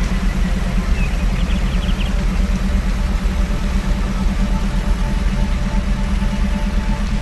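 Steady low electronic hum of a binaural-beat theta-wave track over a constant rushing noise bed, with faint held higher tones.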